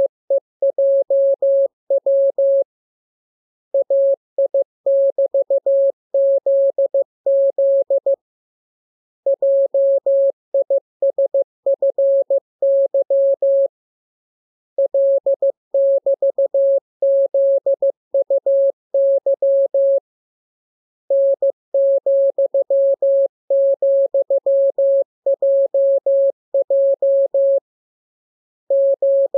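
Morse code sent as a single steady tone keyed on and off in dots and dashes, in groups separated by pauses of about a second: a training radiogram of the lesson's letters and signs.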